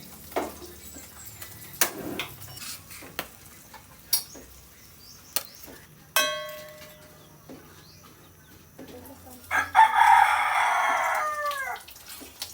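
A rooster crowing once near the end, a harsh call of about two seconds that falls away at its close, the loudest sound here. Before it come scattered light clicks and knocks, and about halfway a single metallic strike that rings and fades over about a second.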